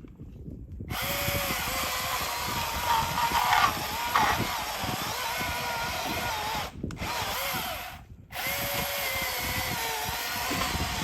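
Milwaukee M18 cordless electric chainsaw running and cutting wood: its motor starts with a whine about a second in, its pitch dipping and recovering under load. The trigger is let off briefly twice near the middle before it cuts on.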